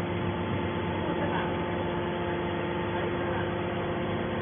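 Hydraulic baler's electric motor and pump running steadily, a constant hum with a few fixed tones.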